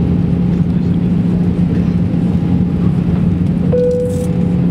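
Airbus A320 cabin noise during the descent: a steady rumble of engines and airflow with a constant low hum. A steady higher tone comes in suddenly about three-quarters of the way through and holds.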